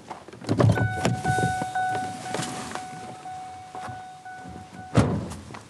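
Gear being handled at a pickup truck: knocks and rattles, then a steady high electronic tone with slight breaks about twice a second for about four seconds. The tone stops with a loud slam near the end.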